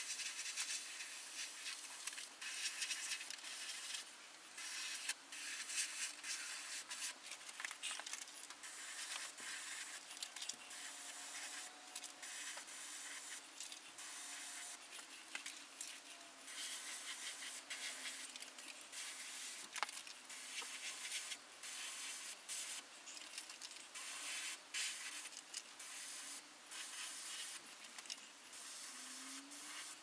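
DeVilbiss SRi Pro Lite mini HVLP spray gun hissing in many short bursts as the trigger is pulled and released, spraying a white sealer mix.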